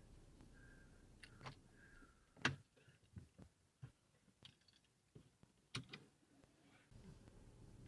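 Near silence with a few faint clicks and knocks, the loudest about two and a half seconds in and another near six seconds.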